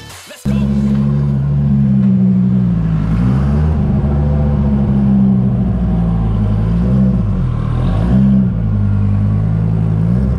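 Twin-turbo Dodge Viper V10 engine running loudly. It cuts in about half a second in, and its pitch dips briefly and comes back up a few times.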